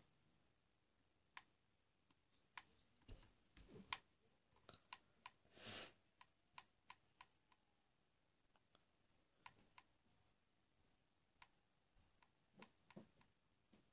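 Near silence broken by faint, irregular clicks, the button presses of a TV remote scrubbing through a paused streaming episode, with a short soft rustle about six seconds in.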